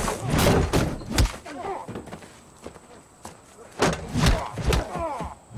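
Fight-scene sound effects: a run of sharp punch and body impacts, some against a truck's metal door, with grunts between the blows. The hits cluster in the first second and again near the end.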